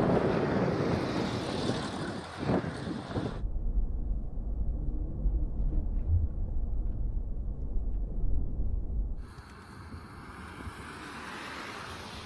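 Storm wind and traffic noise in snowstorm footage: a broad rushing hiss, then a deep rumble of wind buffeting the microphone from about three seconds in, giving way to a softer steady hiss near the end.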